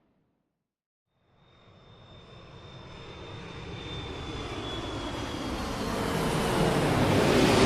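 Airplane approaching for a fly-over: after about a second of silence it fades in and grows steadily louder, with a high whine that slowly falls in pitch over the rushing engine noise.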